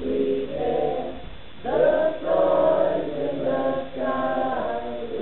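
Mixed group choir of young and adult voices singing together, holding long notes, with a brief pause about a second and a half in before coming in louder.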